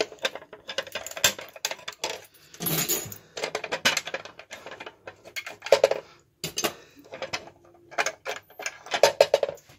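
Irregular clicks, taps and light clinks of a fire-alarm manual call point's plastic front and its broken glass element being handled as the call point is opened and the glass taken out.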